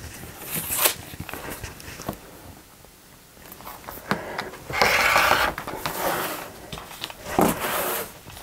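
Rotary cutter slicing through layers of fabric strips against a plastic quilting ruler on a cutting mat: one longer cut about five seconds in, with shorter cuts and the handling of fabric and ruler around it.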